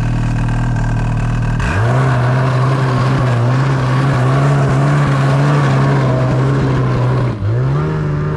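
Ski-Doo snowmobile engine idling, then throttled up sharply about a second and a half in and held at a higher, wavering pitch as the sled runs. Near the end the throttle eases off briefly and then opens again.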